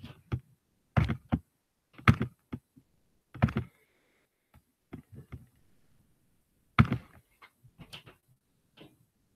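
Irregular short knocks and thumps, about ten of them, with silence in between.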